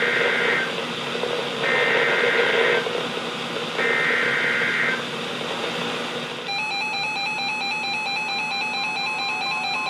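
Three bursts of EAS SAME header data from a NOAA Weather Radio broadcast, about a second each and about a second apart, marking the start of a new warning. About six and a half seconds in, an alert tone starts: a steady pattern of alternating electronic tones.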